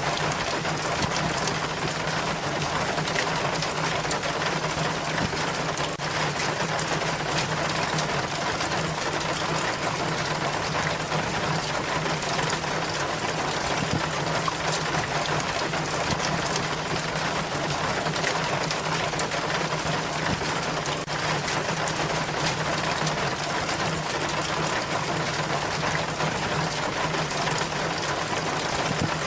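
Rainwater running and splashing down a rain chain, a steady even wash of water noise, with a steady low hum underneath.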